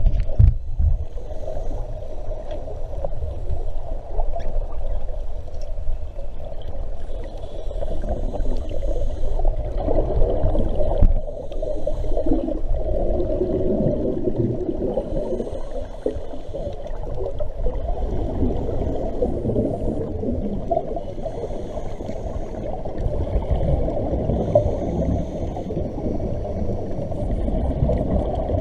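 Muffled underwater sound of scuba breathing, a steady low rumble with the diver's exhaled regulator bubbles gurgling up every two to three seconds.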